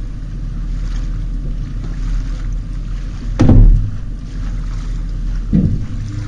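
Two heavy thuds about two seconds apart, the first much the louder, as a man moves about in an aluminium fishing boat sitting on its trailer, over a steady low rumble.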